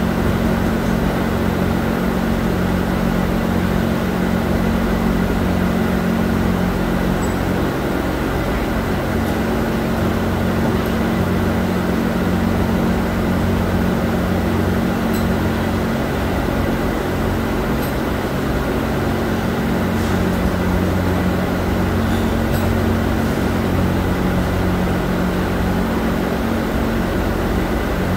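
Steady, loud hum of factory machinery: a deep, unchanging drone with a few faint clicks around the middle.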